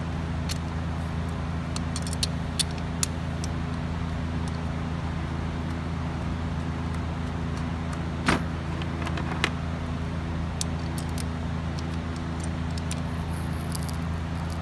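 Ignition coils being pushed onto the spark plugs of a Toyota Yaris and their connectors clipped on: a few short sharp clicks, the loudest about eight seconds in, over a steady low mechanical hum.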